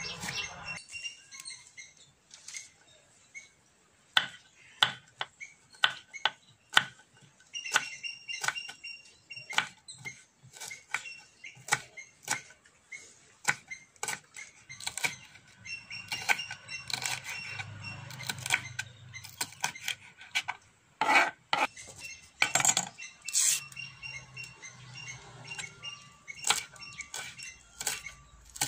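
Kitchen knife chopping on a wooden cutting board: irregular sharp taps as onion and green chillies are cut, with a few louder knocks about three-quarters of the way through.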